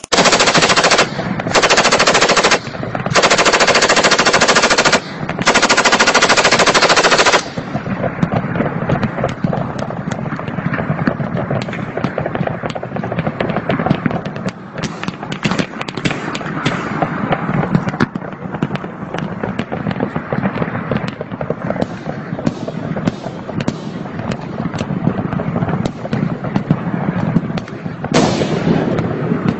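Heavy automatic gunfire from machine guns and automatic rifles. Four long, very loud bursts fire close by in the first seven seconds or so, with short gaps between them. Then comes a continuous crackle of many guns firing at once farther off, with scattered louder shots and another nearer burst near the end.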